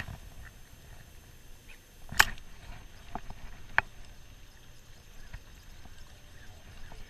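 Spinning reel being cranked and handled during a retrieve: a few sharp clicks, the loudest about two seconds in, over a faint steady background.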